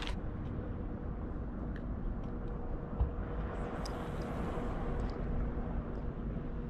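Steady low rumble of wind on the microphone with a faint steady hum, a light knock about three seconds in, and a short hiss around four seconds in as a float rig is cast out on a spinning rod.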